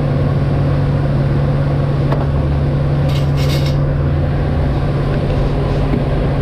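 Loud steady low machine hum throughout, with a short clattering rattle about three seconds in, and a faint click just before it.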